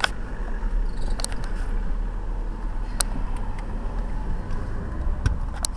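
Handling noise from working a car seat's tether strap: a steady low rumble with scattered sharp clicks and knocks, about five over the span.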